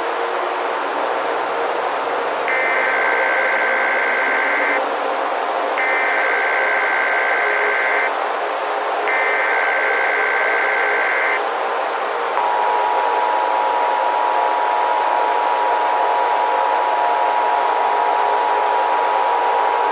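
Emergency Alert System header: three bursts of digital data tones, each just over two seconds long and about a second apart, over a steady hiss of static. About twelve seconds in, the steady two-tone EAS attention signal begins and holds.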